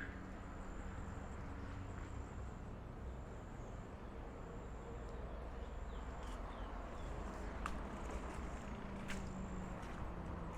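Insects, crickets or similar, trilling in a thin high-pitched drone that breaks off and starts again several times, over a low outdoor rumble, with a few sharp clicks near the end.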